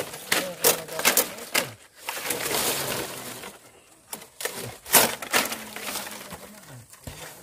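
Nipa palm leaflets being snapped and stripped off the frond: a quick series of sharp snaps and cracks with rustling of the stiff leaves in between.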